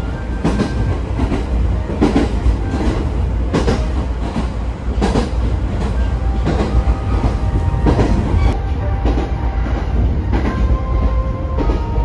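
Electric commuter train running at speed, heard from inside the passenger car: a steady low rumble with sharp wheel clacks over the rail joints about once or twice a second.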